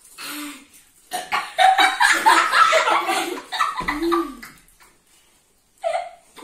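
Several children laughing and squealing together for a few seconds, then falling quiet before another short burst of laughter near the end.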